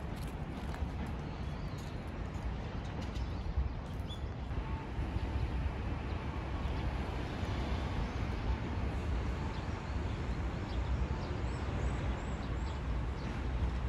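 Outdoor city ambience: a steady low rumble of distant traffic, with a few faint short bird chirps in the second half.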